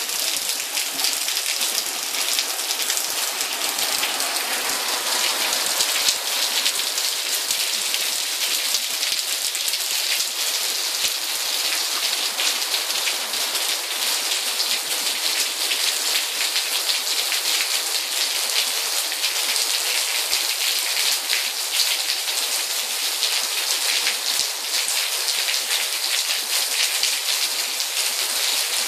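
Steady rain shower falling on a wet patio and plants: a dense, even hiss of drops, mostly high in pitch, with many small sharp drop hits all through.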